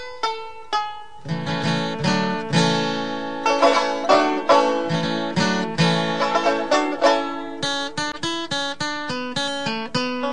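Instrumental music of quickly picked plucked strings, each note ringing and fading; lower notes join about a second in and fill out the sound.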